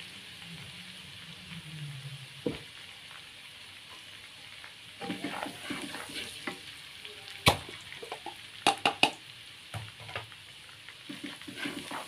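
Minced garlic sizzling in hot oil in a non-stick wok, stirred with a plastic spatula. From about five seconds in the spatula scrapes and knocks against the pan, with one sharp knock and then three quick ones in the middle.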